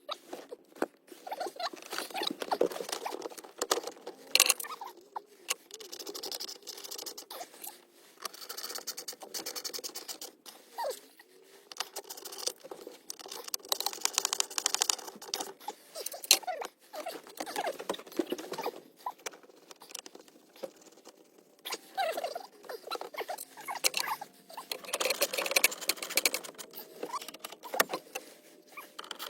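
Irregular clicking, tapping and rustling scrapes of plastic dash parts and wiring being handled and pushed into place during a car stereo installation.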